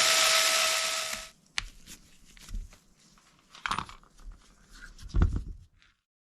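A handheld power drill-driver runs with a steady whine and stops about a second in. Small clicks and knocks of parts and tools being handled follow, the loudest about five seconds in, and the sound then cuts off.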